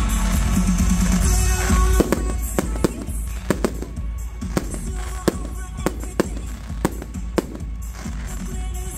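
Fireworks going off in a rapid string of sharp bangs, about two or three a second, from about two seconds in, over music playing throughout.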